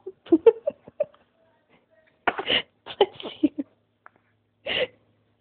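Week-old newborn sneezing: short sneezes about two and a half and nearly five seconds in, with small snuffly breaths between.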